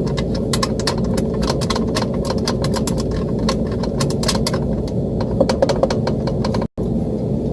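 Steady hum of running rooftop HVAC machinery, with many small irregular clicks and rattles over it. The sound drops out for an instant near the end.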